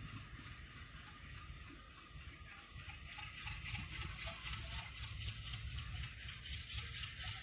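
Passenger train coaches rolling past, their wheels clattering rhythmically on the track over a steady low rumble. The clatter grows louder about three seconds in.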